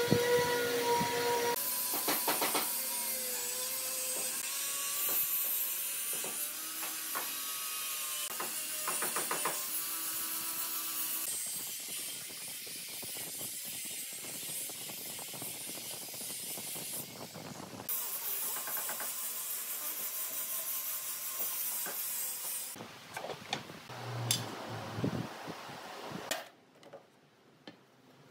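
Woodworking workshop sounds in several short abrupt segments: hissy machine and tool noise with occasional knocks. It drops to a low level near the end.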